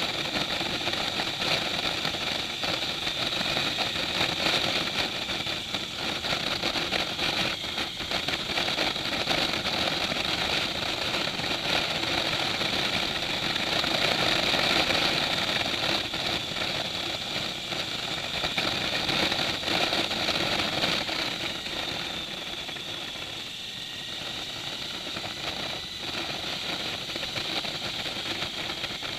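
Motorcycle engine running steadily on the move, heard from on the bike; it gets somewhat quieter about three-quarters of the way through.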